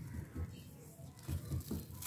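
Hands crumbling a handmade round slab of gritty gray material: soft gritty crunching with a few dull thuds as chunks break away.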